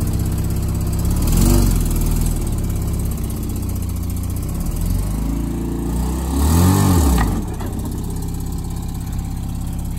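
Mazda RX-7 FC's engine running, revved up and back down twice, about a second in and again near seven seconds, as the lowered car is driven slowly over an obstacle.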